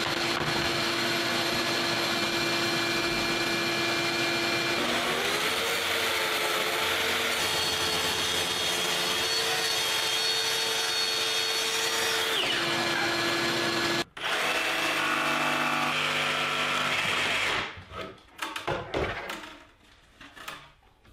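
Kreg track saw running along its aluminium guide rail, cutting through 3/4-inch plywood: a steady motor whine with cutting noise. After a brief gap it runs again for a few seconds, then stops. Near the end there are scattered knocks as the cut plywood pieces are handled.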